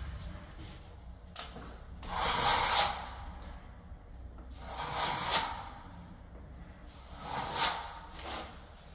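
Steel plastering trowel drawn along the wetted wall-ceiling angle over damp filler, giving it another smoothing pass: three scraping swishes, the first and loudest about two seconds in, then near the middle and near the end, with a couple of light clicks between.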